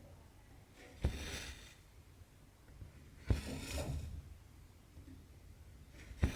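Cross-stitch needle punching through Aida cloth three times, each stitch a sharp tap followed by the short rasp of cotton thread drawn through the fabric.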